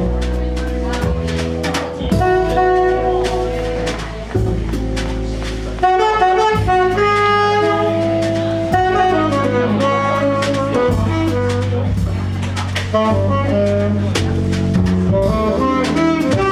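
A jazz quintet plays a bossa nova: a saxophone carries a flowing melodic line over bass notes and a drum kit's light cymbal work.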